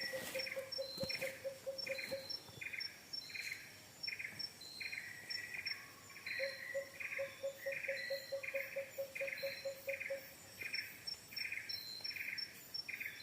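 Forest insects chirping in a steady rhythm, the loudest about one and a half chirps a second, with higher, faster chirping over it. A lower, rapid pulsing trill joins at the start and again from about halfway in for a few seconds.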